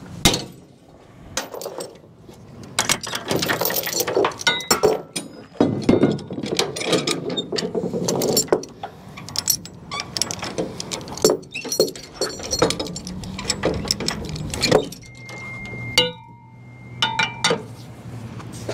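Steel tie-down chain being pulled through a hook and handled on a trailer deck: irregular clinks, rattles and clanks of the links against metal and wood, busiest in the first half, with a red lever chain binder being fitted.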